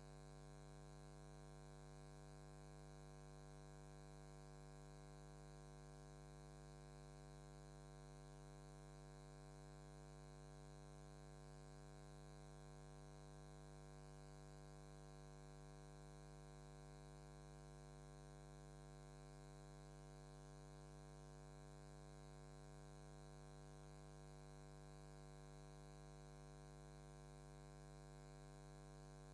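Near silence with a faint, perfectly steady hum carrying many overtones; no tapping or strikes.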